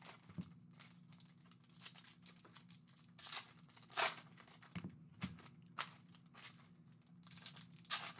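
Foil trading-card pack wrappers crinkling and tearing in a few short rustles, the loudest about four seconds in.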